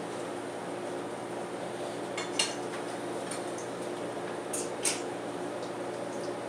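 A few sharp clinks of a metal kitchen utensil against a frying pan and dishes, the loudest about two and a half and five seconds in, over a steady background hum.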